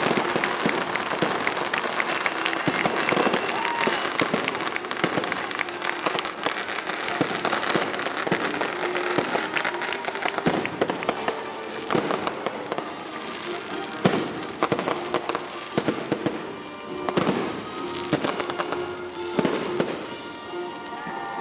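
Aerial fireworks display: a dense, continuous run of bangs and crackling, with one sharper bang a little past halfway.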